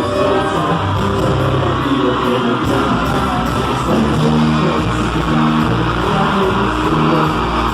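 Guitar-led band music with strummed guitar and bass over a steady beat.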